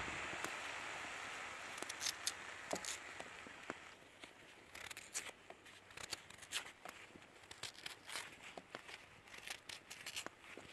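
Hot cast-iron pan of sweet potato chunks sizzling after water is poured in instead of oil. The hiss fades over the first few seconds, and scattered crackles and pops follow as it steams.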